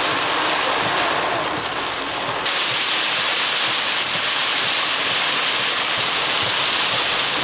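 Heavy rain beating on a car's windshield and roof, heard from inside the moving car as a dense, steady hiss. About two and a half seconds in, the hiss jumps suddenly brighter and louder.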